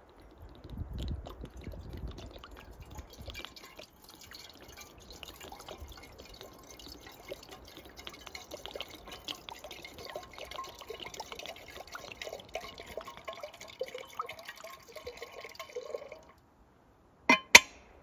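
Water poured from a metal field flask into a small kettle, gurgling and splashing steadily until the pour stops near the end. Two sharp knocks close together follow just before the end.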